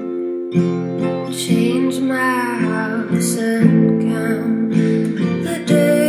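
Folk song demo: acoustic guitar chords strummed about twice a second, with a woman's voice singing a wavering line in the middle.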